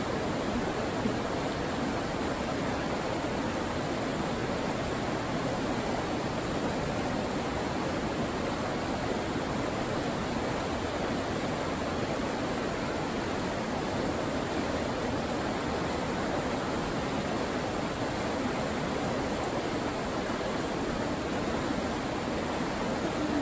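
Steady rushing of a river's shallow rapids, white water running over rocks.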